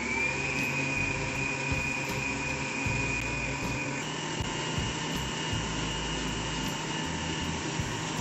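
Planetary stand mixer's motor running with its whisk beating egg whites to a foam. It finishes spinning up to a steady high whine, and its pitch jumps higher about four seconds in.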